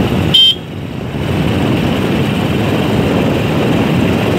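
Wind blowing across an outdoor phone microphone: a steady rumbling rush of noise. A brief high tone sounds about half a second in, and the noise dips for a moment after it.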